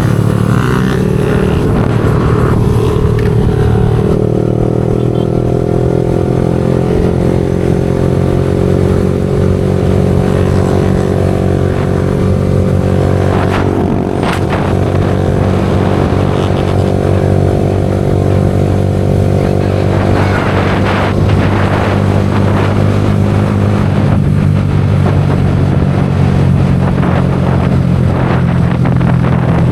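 Yamaha R15 V4 motorcycle's single-cylinder engine running through an aftermarket Leo Vince exhaust at a fairly steady speed, its note easing down a little about four seconds in and shifting again about two-thirds of the way through.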